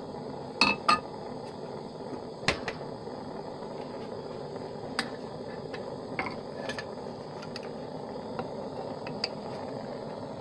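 Scattered sharp metallic clinks and taps of crucible tongs and crucible against graphite molds while molten copper is poured, over a steady background hum.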